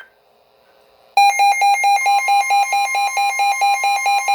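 Midland WR120 NOAA weather radio alert alarm: a loud, rapidly pulsing beep starts about a second in. About two seconds in, a steady higher tone joins it, the broadcast's warning alert tone. It signals a newly received weather alert.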